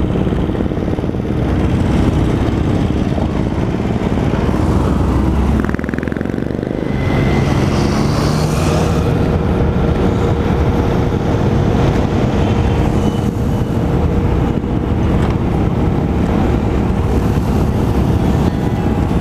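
Motorcycle and scooter engines running steadily at riding pace in a group ride, heard from the back of a moving Vespa with wind rumble on the microphone. There is a brief dip and change in the engine sound about six seconds in.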